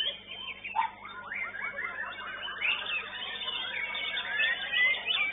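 White-rumped shama (murai batu) singing a fast, varied run of chirps, whistles and rising and falling notes.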